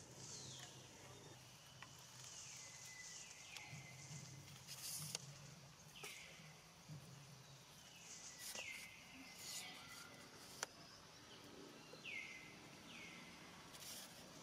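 Quiet outdoor ambience with a repeated faint high animal call, each a quick falling sweep that levels off, at irregular gaps of one to three seconds, and a few soft clicks between.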